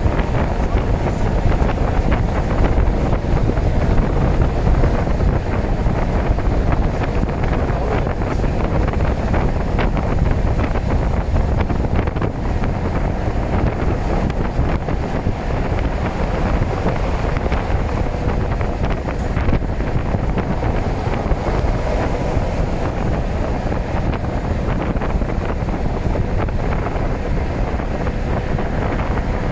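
Long freight train rolling past with a steady, unbroken low rumble, and wind buffeting the microphone.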